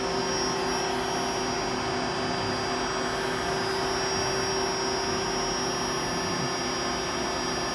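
Steady whir and hum of powered-up machinery, with a few constant tones over it and no change in level.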